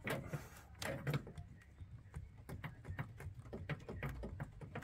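Irregular small clicks and knocks of plastic engine-bay pipes and connectors being handled and pushed into place, a few louder ones near the start and about a second in.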